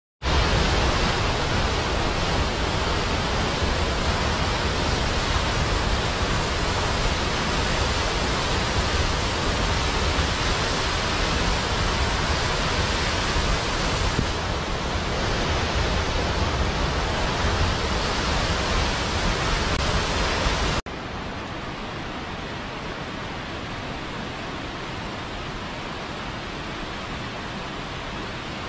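Steady rush of a waterfall. About two-thirds of the way through it cuts off abruptly and gives way to a quieter, duller steady rush.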